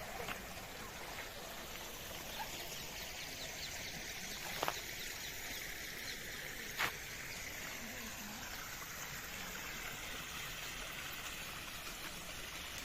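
Steady outdoor background noise with faint bird chirps and two sharp clicks, one a little before five seconds in and one near seven seconds.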